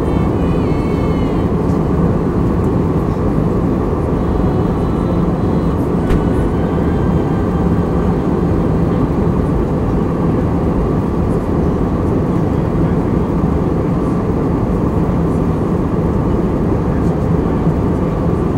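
Steady cabin noise of an airliner in flight, heard at a window seat: the deep, even rush of the engines and airflow, with a low hum under it.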